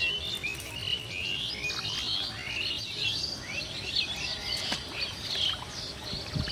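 Several birds chirping at once, many short high calls rising and falling and overlapping without a break.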